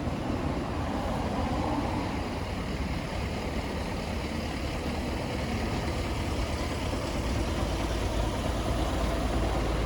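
Road traffic: cars and trucks going by with a steady low rumble of engines and tyres, growing a little louder near the end.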